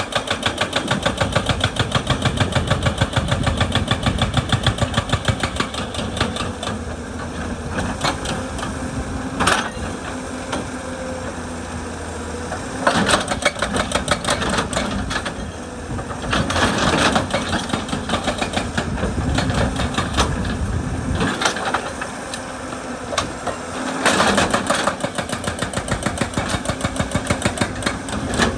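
Excavator-mounted hydraulic rock breaker hammering on stone in rapid, evenly repeated blows, with the excavator's diesel engine running under it. The hammering is steady for the first several seconds, then comes in shorter bursts with single knocks between.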